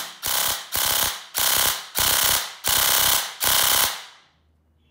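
Bare V2 gel blaster gearbox with a DSG (dual sector gear) and a one-piece cylinder, out of the blaster and test-fired on full auto: about seven short bursts of rapid mechanical cycling, each under half a second, stopping about four seconds in.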